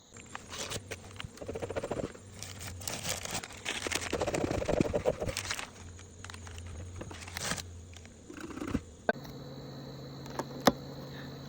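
Bee smoker being lit and loaded: irregular crumpling, rustling and crackling of the fuel being packed in and catching. After a change about nine seconds in there is a steady background with a couple of sharp clicks.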